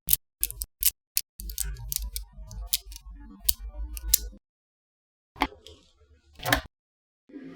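Small magnetic balls clicking as they snap together: a series of sharp clicks, several in quick succession. Between about one and a half and four seconds in, a dense run of clicks sits over a low rumbling handling noise.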